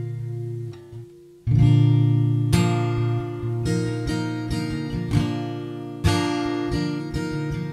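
Takamine acoustic-electric guitar, fed through its direct line input, playing a song intro. A chord rings and fades into a short lull, then about a second and a half in strummed chords and picked notes start again and carry on.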